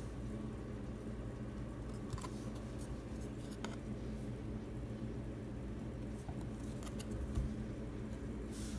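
Light handling noises, a few short clicks and rustles spread through, over a steady low hum.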